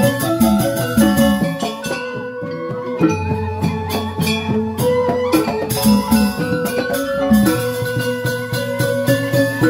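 Balinese joged gamelan playing: struck keyed instruments in fast interlocking patterns over kendang hand-drum strokes. A brief thinning about two seconds in, then a long low note holds for about two seconds under the playing.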